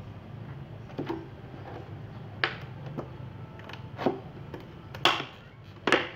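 Thin clear plastic jug crackling and clicking as it is gripped and turned and a heated screwdriver tip is pressed into its wall. About six sharp, irregular clicks over a steady low hum, the loudest two near the end.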